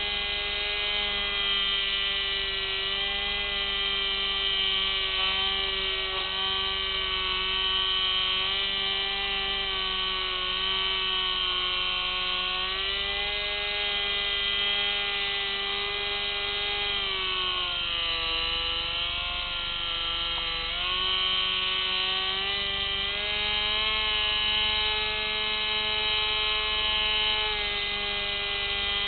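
Electric motor and propeller whine of an FPV model aircraft, picked up by its onboard camera: a steady buzzing whine whose pitch drops for a few seconds about two-thirds of the way through, then climbs back.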